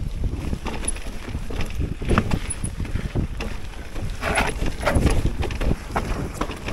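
Mountain bike riding down a rough trail: a steady rumble of tyres on the ground with irregular knocks and rattles from the bike over bumps.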